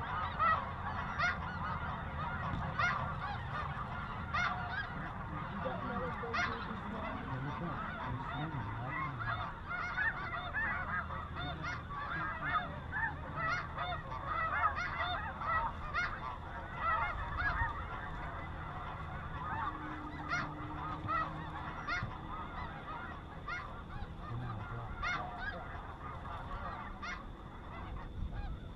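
A dense chorus of many snow geese calling at once, short overlapping calls running continuously and thinning a little near the end.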